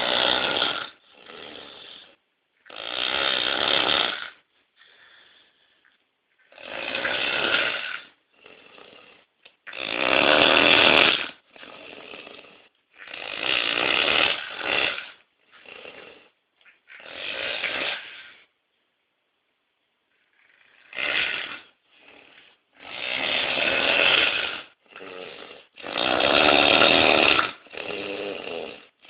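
Heavy snoring: a long run of noisy snores lasting one to two seconds each, loud ones alternating with shorter, quieter ones, with a pause of about two seconds about two-thirds of the way through.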